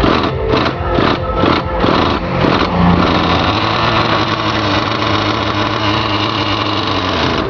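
Simson S50 moped's small two-stroke engine running, pulsing in even surges about two and a half times a second for the first couple of seconds, then settling into a steady run.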